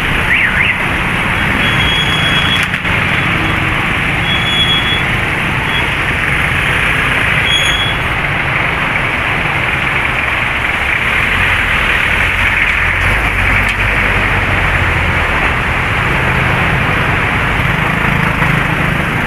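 Heavy rain pouring steadily, with motor traffic running through the wet street.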